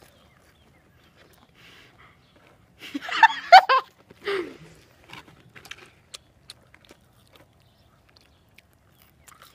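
A girl's short burst of laughter about three seconds in, followed by a brief vocal sound. Around it, only faint scattered clicks of chewing while eating chicken nuggets.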